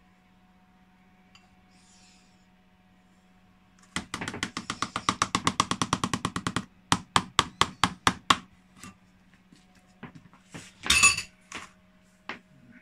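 A kitchen utensil knocking against a bowl as butter is worked out into it. A fast run of knocks, about ten a second for a couple of seconds, gives way to slower knocks, a few scattered taps and a short scrape near the end.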